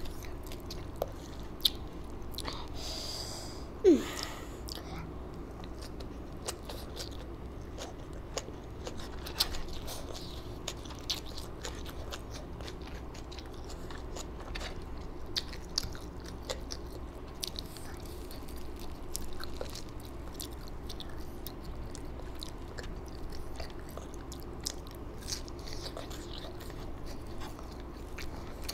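A person eating close to the microphone: steady chewing with many short, crisp crunches and clicks of bites of crunchy food. The loudest crack comes about four seconds in, all over a faint steady hum.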